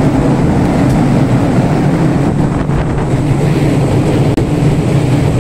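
Steady low drone of a ship's machinery, with wind on the microphone.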